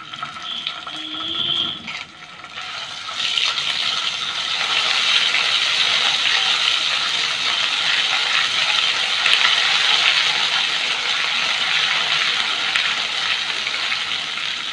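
Ginger-garlic paste sizzling in hot oil in a kadhai and being stirred with a spatula while a tadka is tempered. The sizzle swells about three seconds in and then holds steady.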